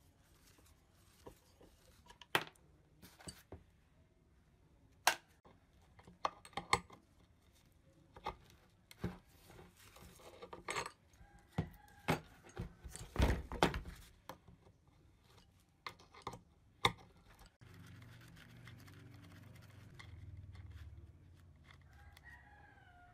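A wrench clicking, knocking and scraping against the metal cap and casing of an old ENDO EWF-9 spring balance as it is worked to turn the cap loose, in irregular sharp clicks and knocks. About two-thirds of the way through, a steady low hum comes in.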